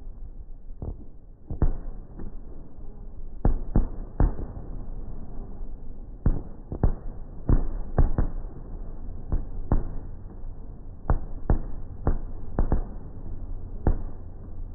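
Aerial firework shells bursting: a rapid, irregular run of sharp bangs, often more than one a second, with no real pause between them.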